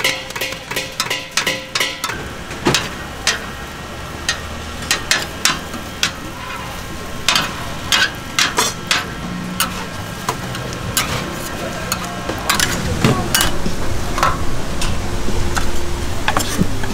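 Vegetable egg rolls pan-frying on a griddle, with many irregular sharp clicks and scrapes of a metal utensil against the pan over the frying hiss. Background music fades out in the first couple of seconds.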